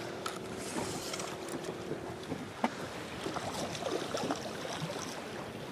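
Wind and choppy sea water around a small boat, with the steady hum of a spinning reel being wound in for the first couple of seconds. Light clicks and small splashes follow as a hooked fish thrashes at the surface.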